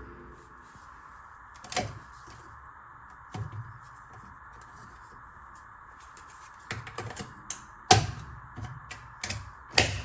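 Scattered sharp clicks and knocks, a few in quick runs, the loudest about eight seconds in and just before the end, over a steady faint hiss.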